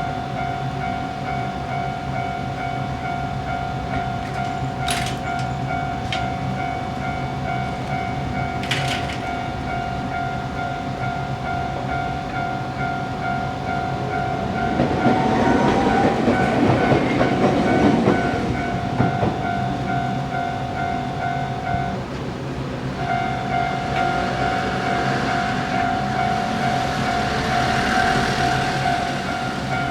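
Japanese railway level-crossing alarm, the standard electronic bell type, ringing in steady repeated strokes. A Tokyu Setagaya Line train runs through the crossing about 15 seconds in. The alarm stops for about a second near 22 seconds and starts again, and train noise returns near the end.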